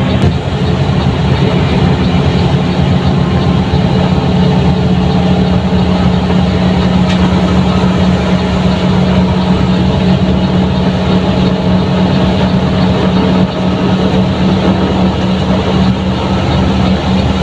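Front-engined Mercedes-Benz 1623 bus diesel engine running steadily under way, with road noise. Its steady low note shifts slightly just after the start and then holds.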